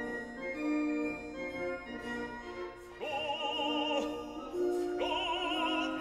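Background classical music: held chords, then an operatic singing voice with wide vibrato enters about three seconds in, with a new phrase about five seconds in.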